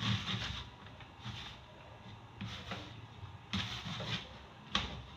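A hand working crumbly flour, oil and water dough in a ceramic bowl: irregular rustling, scraping strokes every half second to a second, each with a soft thud against the bowl, as the mixture is still dry and coming together.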